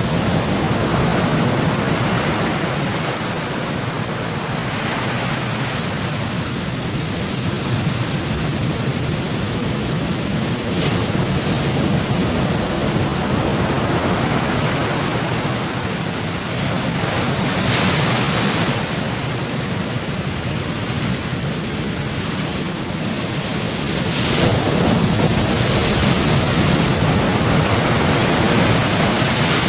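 Heavy sea waves surging and breaking, with strong wind buffeting the microphone. It is a continuous rushing, growing louder in surges about two-thirds of the way in and again near the end.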